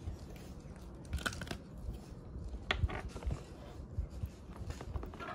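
Plastic spoons scraping and clicking in plastic tubs as slime is stirred, with scattered light clicks and taps of small plastic containers being handled.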